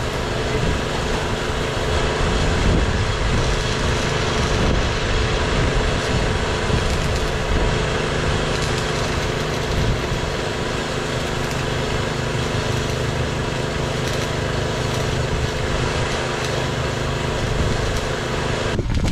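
A small engine running steadily at one speed.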